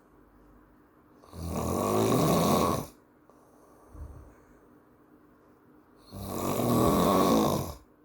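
A man snoring in his sleep: two long, loud snores about five seconds apart.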